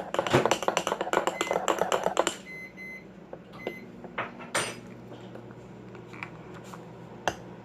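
A spoon stirring fast in a ceramic mug, a rapid clinking run that stops after about two seconds. Two faint short beeps follow, then a few separate knocks, and a low steady hum starts about halfway through.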